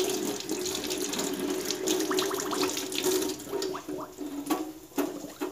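Kitchen tap running into a stainless steel sink as green onion stalks are rinsed by hand under the stream, with irregular splashes and small knocks.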